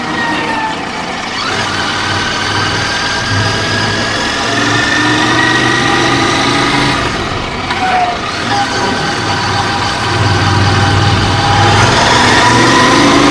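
Royal Enfield Continental GT 650's parallel-twin engine running under way, picked up by a helmet-mounted action camera's own microphone. Its pitch climbs slowly, dips about halfway through, then climbs again toward the end.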